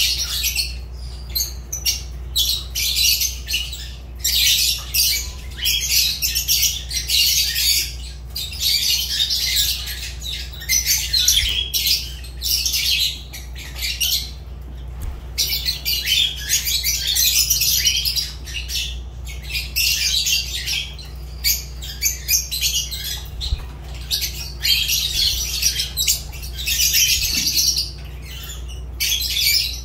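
Fischer's lovebirds (Agapornis fischeri) chattering and squawking in rapid, shrill, near-continuous bursts, with a short lull about halfway through.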